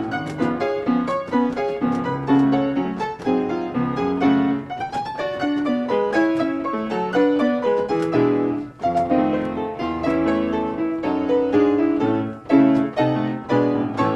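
American oak pianola (player piano) playing a paper music roll: a continuous piano tune with full chords and busy runs of notes.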